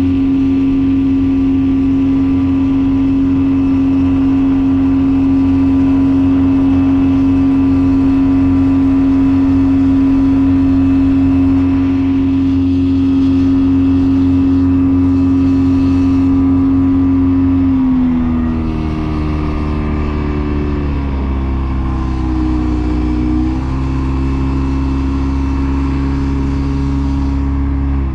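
Boat motor running under way at a steady high speed, a loud constant drone. About 18 seconds in its pitch drops and then wavers up and down as the speed changes.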